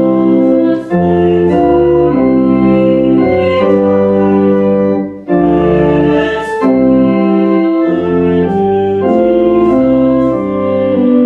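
Organ playing music in held chords that change every half second to a second, with short breaks between phrases about a second in and again about halfway through.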